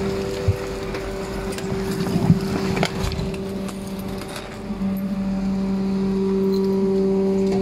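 Rear-loading garbage truck's hydraulic compactor cycling: a steady machine hum from the engine and hydraulic pump as the packer blade sweeps down through the hopper, with a few metal knocks and clanks in the first three seconds. The hum grows louder about five seconds in as the blade pushes the load.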